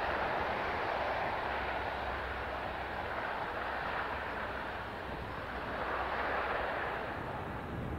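The four Allison T56 turboprop engines of a C-130H Hercules running as it taxis: a steady drone of propellers and turbines that swells a little about six seconds in.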